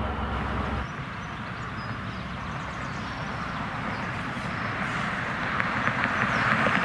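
A train on the rails: a low steady engine hum cuts off about a second in, then a rushing rumble builds, growing louder near the end with a run of sharp clicks.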